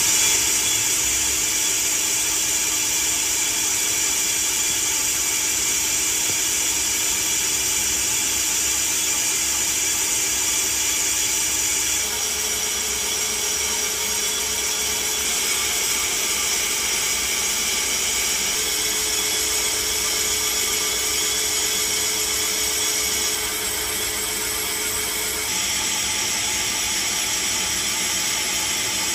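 CNC lathe turning a large cast phosphor bronze bushing dry, without coolant: a steady, hissy cutting noise with a faint steady tone underneath that changes pitch partway through.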